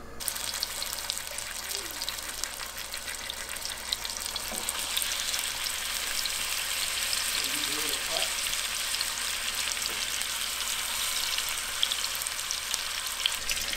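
Seasoned oxtail pieces searing in hot oil in a non-stick pan: a steady sizzle full of small crackling spatters, getting a little louder about four seconds in.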